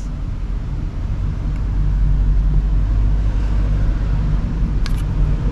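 A steady low mechanical hum that gets a little louder about two seconds in, with a short click near the end.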